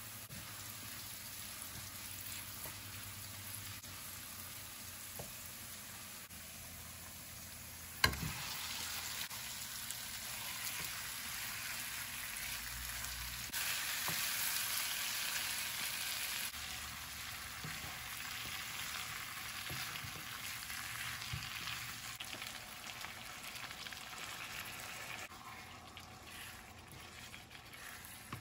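Onions and spiced chicken pieces frying and sizzling in oil in a non-stick wok, stirred with a spatula. A single sharp knock about eight seconds in, after which the sizzling is louder, then it eases off near the end.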